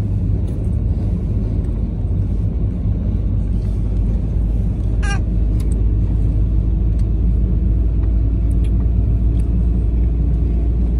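Steady low road and engine rumble of a vehicle driving on an open road, heard from inside the cabin. A brief sharp high sound comes about halfway through.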